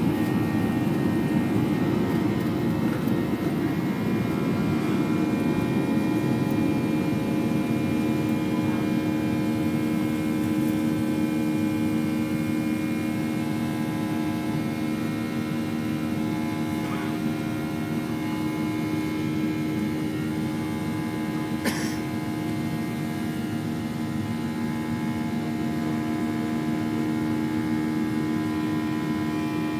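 Boeing 737 jet engines at takeoff power, heard inside the cabin from a window seat by the wing: a loud rushing noise with steady whining engine tones. The rough rumble of the runway fades in the first few seconds as the plane lifts off, leaving an even drone through the climb, with a brief click about 22 seconds in.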